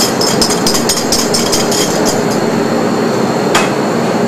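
A quick run of light clinks against a stainless steel mixing bowl as egg yolks are emptied into it from a porcelain bowl, then one sharper clink about three and a half seconds in. A steady background hum runs underneath.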